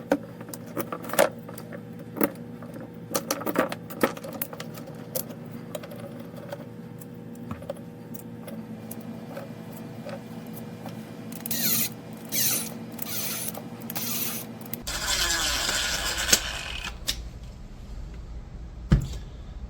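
Small parts of a kinetic sculpture being handled and fitted, with irregular sharp clicks and knocks. Several short bursts of noise come about two thirds of the way in, followed by a longer one.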